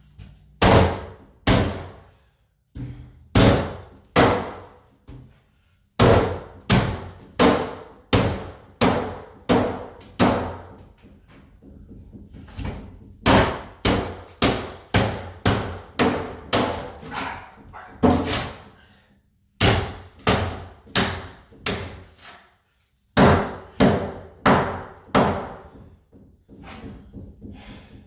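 Repeated heavy blows striking a cabinet as it is being smashed apart. They come in runs of several sharp strikes, about one to two a second, with short pauses between runs.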